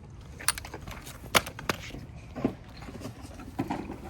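Several sharp clicks and knocks, three close together in the first two seconds and softer ones after, over a low steady background hum.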